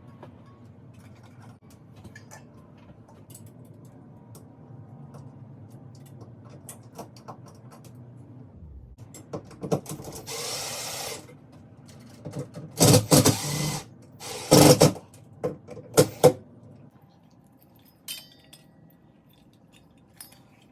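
Power drill run in a series of short bursts about halfway through, the second and third the loudest, after several seconds of faint low hum.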